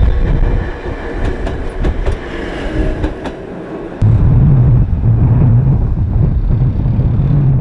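Ueda Electric Railway Bessho Line electric train running on the track, its wheels clicking over rail joints. About four seconds in the sound steps up abruptly to a louder, steady low hum.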